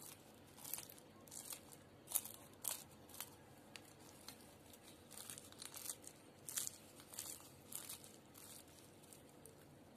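Flaky crust of a baked puff-pastry triangle crackling and crunching faintly as fingers press and pull at it: a run of short, crisp crackles that dies away about eight and a half seconds in.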